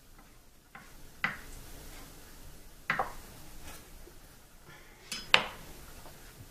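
Chef's knife knocking on a wooden cutting board a few separate times while chopping raw chicken. About five seconds in comes a louder metallic clack with a brief ring, as the knife is laid down on the board.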